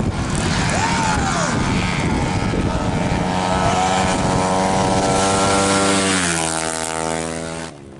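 Tuned 200cc automatic-scooter drag bike running flat out on its run, a loud steady high engine note that falls in pitch and fades from about six seconds in.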